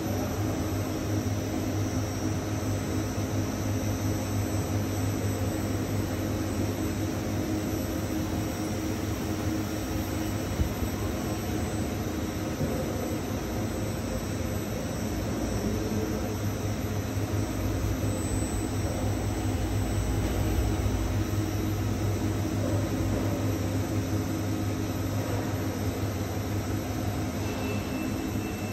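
Direct warping machine running, a steady mechanical whir over a constant low hum, as the yarn sheet winds from the creel onto the warp beam.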